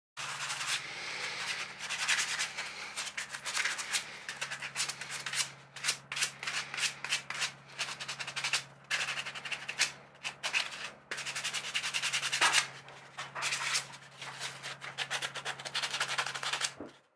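Sandpaper rubbed by hand over a small part in quick, irregular back-and-forth strokes, with short pauses between bouts, over a faint steady low hum.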